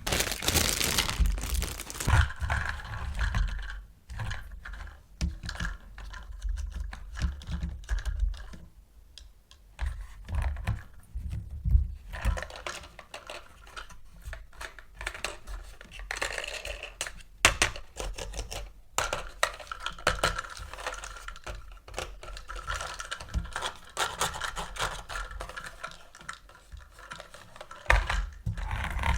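Hands handling plastic toys and packaging: a dense run of small clicks and taps with stretches of rustling.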